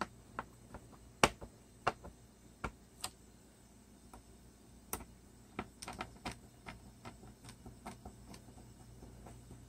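Small screwdriver driving screws into the bottom cover of an iCraig 14-inch Slimbook laptop: irregular sharp clicks and ticks of the driver and screws against the case. A run of quicker, smaller clicks comes from about six to eight seconds in.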